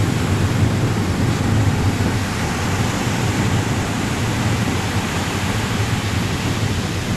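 Steady, loud roar of wind on the microphone mixed with breaking surf, with a deep rumble underneath.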